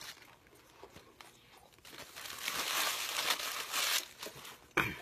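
Paper food wrapper crinkling and rustling as it is handled, loudest from about two to four seconds in, with a brief louder sound near the end.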